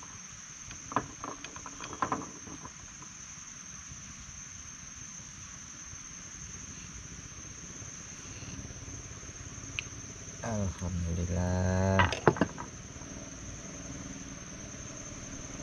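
Insects droning steadily at one high pitch in the riverside vegetation, with a few light knocks about one and two seconds in.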